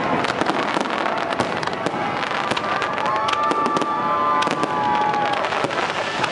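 Aerial fireworks bursting in rapid succession: a dense run of sharp cracks and bangs. From about halfway a few steady, held whistling tones sound over the crackle.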